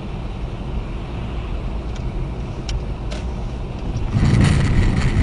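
Car driving on a road: steady engine and road noise with a few faint clicks, growing louder about four seconds in.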